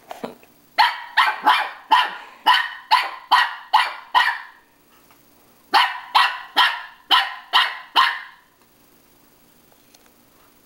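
Small white dog barking at its own reflection in a mirror: a quick run of about nine barks, a pause of about a second and a half, then six more, roughly two to three barks a second.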